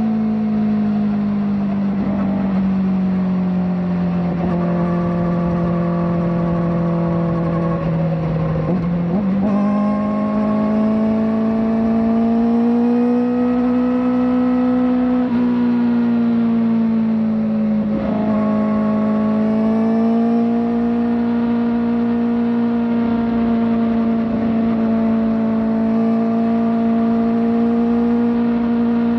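Kawasaki ZX-4RR's 399 cc inline-four, fitted with a slip-on exhaust, running hard under load from the rider's seat. The engine note stays high and steady. Its pitch sags and then climbs back up twice, around nine and eighteen seconds in.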